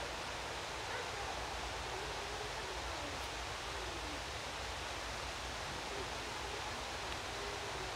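Steady outdoor ambience: an even, fairly quiet hiss of open-air background noise with faint wavering sounds behind it.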